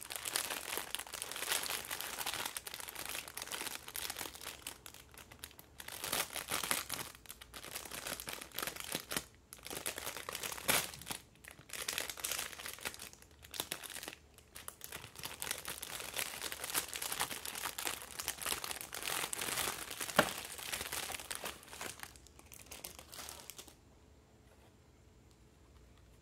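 Clear plastic bag crinkling and rustling as hands work a plush doll out of it, with a few sharper crackles. The crinkling stops a couple of seconds before the end.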